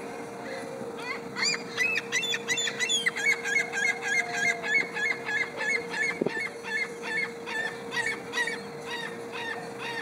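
Ring-billed gull giving a long run of repeated squealing calls, about three a second, beginning about a second in and trailing off near the end, over a faint steady hum.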